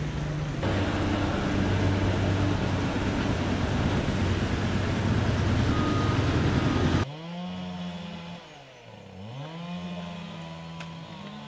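A loud engine running close by for about seven seconds, then cutting off abruptly. A quieter engine follows, its pitch sinking and rising again.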